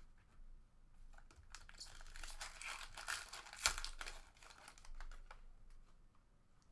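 Foil trading-card pack wrapper being torn open and crinkled, the crackling loudest between about one and a half and four seconds in, with one sharper snap in the middle. After that come light clicks of the cards being slid out and handled.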